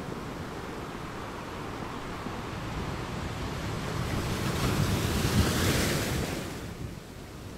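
Sea waves washing onto the shore, with wind rumbling on the microphone. One wave builds about three seconds in, breaks with a rising hiss, and falls away near the end.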